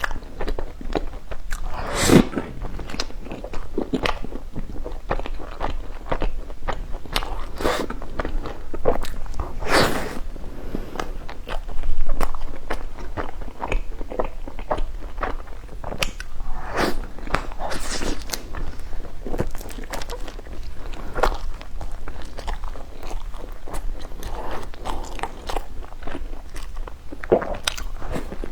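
Close-up mukbang eating of bread puffs: repeated bites and chewing, with many sharp crunches and a few louder bites spread through.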